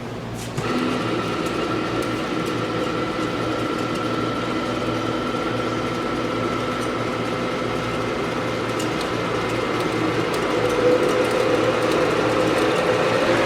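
Heavy-duty variable-speed drill press running: the machine starts with a step up in level about half a second in, then runs steadily with a hum and several steady tones, and near the end one tone slowly rises in pitch as the spindle speed goes up.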